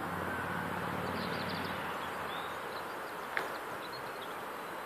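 Outdoor ambience: a low distant engine hum that fades away over the first two seconds or so, a few faint bird chirps, and one brief sharp sound about three and a half seconds in.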